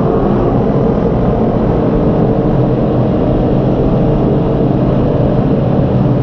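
Honda CB650R's inline four-cylinder engine running steadily while the motorcycle is ridden, its pitch holding about even.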